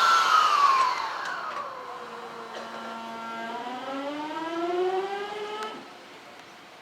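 Electric motor inverter whine of a former 209-series train car: several pitched tones glide downward, settle into a steady tone, then climb together as the car accelerates, cutting off abruptly about six seconds in.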